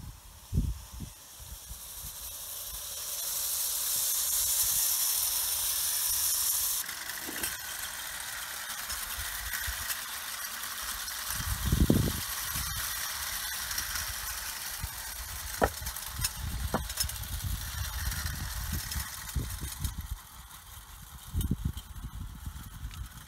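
Hornby clockwork tinplate train running on the track: the wound-up motor whirring and the wheels rattling, with a few sharp clicks. Gusts of wind rumble on the microphone.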